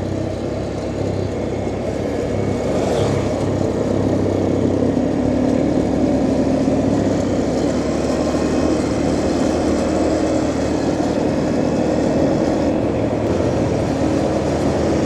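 Vehicle engine and road noise while driving, steady, getting a little louder over the first few seconds.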